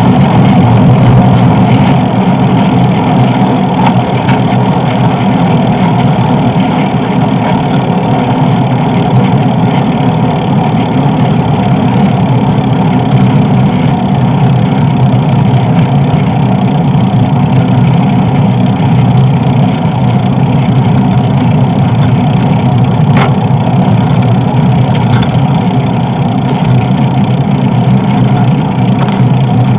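Steady, loud rumble of wind and road noise picked up by a bicycle-mounted camera while riding.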